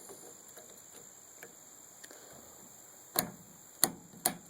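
Sharp metal clicks from chainsaw parts being handled while the chain is fitted on the bar: three clicks about half a second apart in the second half.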